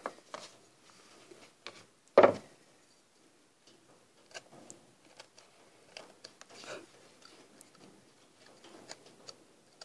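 Hand chisel paring small cuts in wood, a series of faint ticks and short scrapes, with one sharp knock about two seconds in.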